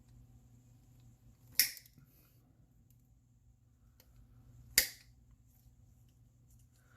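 End nippers snipping through small tabs on a diecast model car, two sharp snaps about three seconds apart.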